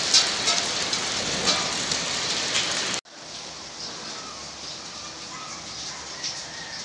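Hail mixed with rain pelting a wet brick patio: a dense, steady hiss with scattered sharp clicks of small ice pellets striking. About three seconds in the sound drops suddenly to a much quieter, steady patter of falling rain.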